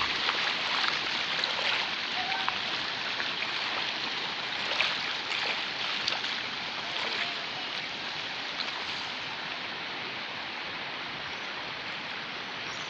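Rio Duda in flood, its fast, swollen water rushing steadily.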